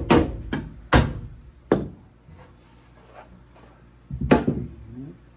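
Three sharp knocks on plywood about a second apart, then a quick cluster of knocks near the end, made while aluminum pop rivets are being set in a boat's plywood floor.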